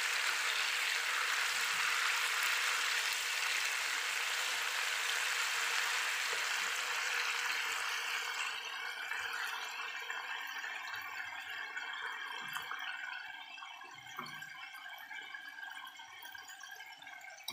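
Salted fish frying in oil in a wok over a low flame: a steady sizzle that fades away over the second half, with a few soft knocks of a wooden spatula turning the fish.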